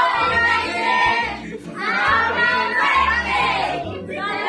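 A crowd of children and adults singing together loudly in phrases of about a second and a half, over music with a steady bass line.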